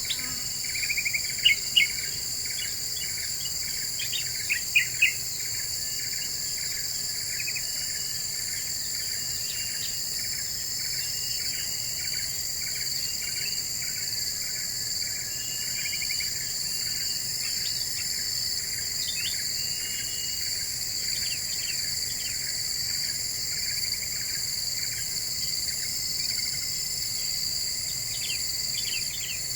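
Kutilang emas bulbul calling: short, bright chirps repeated on and off, loudest in a few strong notes about a second in and again around five seconds. Under them runs a steady high-pitched insect drone.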